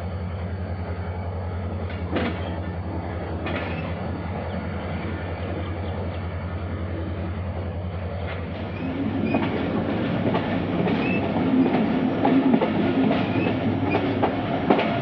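Passenger train moving off, heard from aboard a coach: a steady low hum, with wheel rumble and the clickety-clack of rail joints growing louder about halfway through as the train gathers speed.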